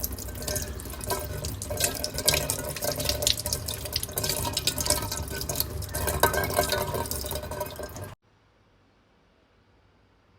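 Water running from a tap and splashing into a container. It cuts off abruptly about eight seconds in, leaving near silence.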